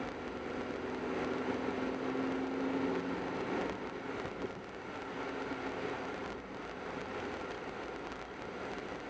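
A car driving on a road: steady engine and tyre noise, with a low engine hum that swells for a couple of seconds about a second in and then fades.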